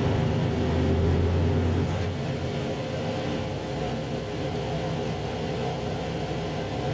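2700-series diesel multiple unit running, heard from inside the train: a steady rumble of engine and wheels on rail. A strong low engine drone eases off about two seconds in.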